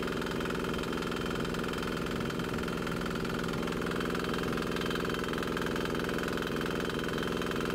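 Single-cylinder 196cc four-stroke air-cooled diesel engine idling steadily, chugging evenly without misfiring, its fuel line switched over to waste motor oil as the last diesel clears the injector line.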